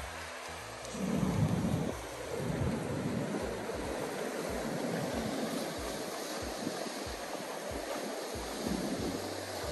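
Sea surf breaking and washing over rocks, with wind rumbling on the microphone; a louder surge comes about a second in.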